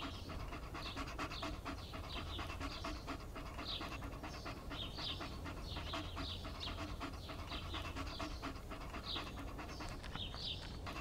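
A standard poodle panting steadily, with short high chirps recurring over it.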